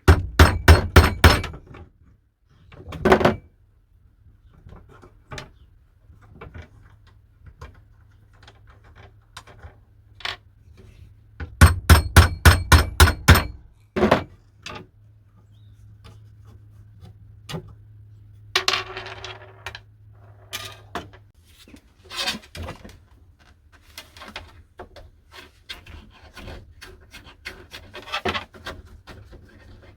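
Hammer tapping a saw handle's threaded nut to drive it back out through the wooden handle: a quick run of sharp strikes at the start, a single blow, then another fast run of about ten strikes near the middle, followed by scattered lighter knocks and clicks of handling.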